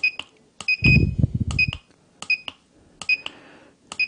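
SigmaProbe circuit tester giving a short high beep at each press of its down button, about six beeps roughly three-quarters of a second apart, each with a faint click. Each press steps the output voltage setting down by half a volt toward zero. A low rumble comes in around a second in.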